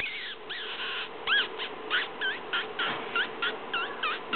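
Four-week-old Brittany puppy whining: a quick string of short high-pitched whines, each bending up and down in pitch, about three a second.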